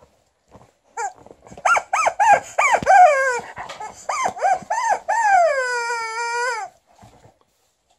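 Rubber chicken dog toy squawking as a dog bites down on it: a quick run of short squawks that drop in pitch, then one long drawn-out squawk.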